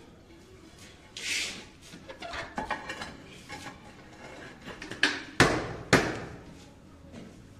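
A large ceramic floor tile being set onto a wet mortar bed: a short scrape about a second in, small clicks and scuffs as it is shifted into position, then near the end a few sharp knocks as it is bedded against the laid tiles, the last two loudest and about half a second apart.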